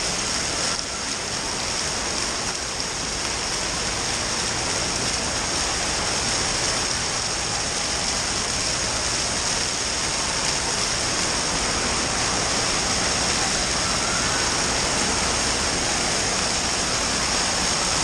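Steady noise of rushing, falling water from indoor water-park attractions, an even wash of sound with no single splash standing out.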